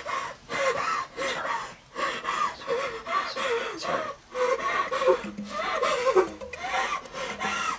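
A person sobbing and gasping for breath in short, broken cries, over soft background music.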